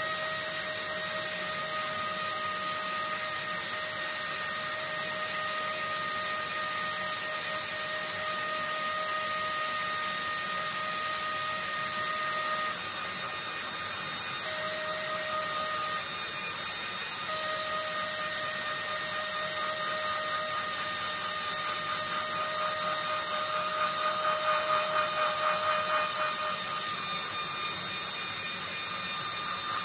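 Pneumatic air scribe running steadily with a buzz and a high hiss of air as its needle chips and smooths the rock matrix around an ammonite. The buzz's pitch wavers slightly and drops out briefly about halfway through.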